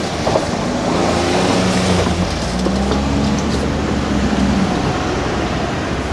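A road vehicle passing by, a steady engine hum and tyre rumble that swells in the middle and then eases off.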